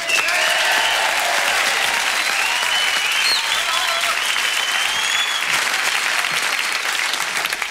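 Studio audience applauding steadily, with a few cheers over the clapping.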